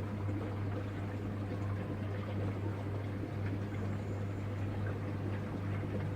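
Panasonic washing machine running: a steady low hum with water rushing inside.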